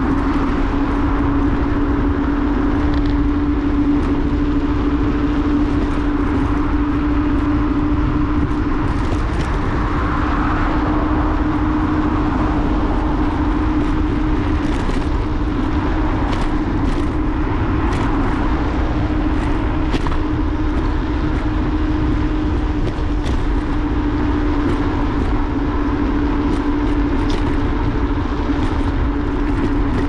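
Apollo Explore electric scooter riding at a steady speed: the motor's even, single-pitched whine over a low rumble of wind on the microphone, with occasional light clicks.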